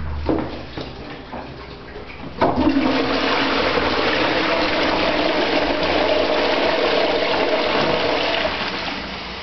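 Toilet flushing from a wall-mounted plastic cistern. About two and a half seconds in, water rushes into the bowl suddenly and loudly, runs steadily for about six seconds, then eases off near the end.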